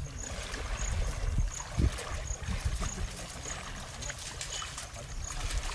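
Shallow pond water splashing and sloshing as several people wade through it, hauling a fishing net.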